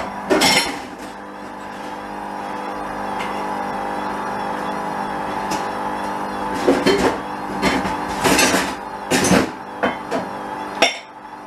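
Hoover A59 washing machine running: a steady motor hum with a warbling high tone, broken by several loud swishes and thuds near the end.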